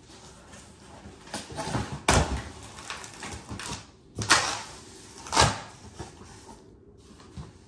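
Cardboard boxes being handled: the long inner box scraping and sliding against the outer shipping box, then its flaps being pulled open. There are three louder knocks about two, four and five and a half seconds in, with rustling and scraping between them.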